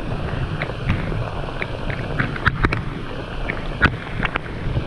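Heavy rain and wind buffeting the microphone: a steady rushing hiss with scattered sharp taps of drops striking close by.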